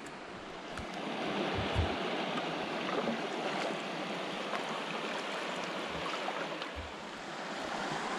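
River water rippling and splashing around a kayak as it is paddled, a steady wash of water noise with a few short low bumps.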